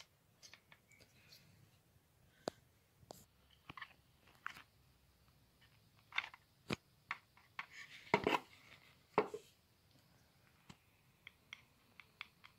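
Irregular small clicks, taps and light scrapes of hard plastic and metal parts being handled and fitted together while a car door lock mechanism is reassembled by hand, the loudest cluster a little past the middle.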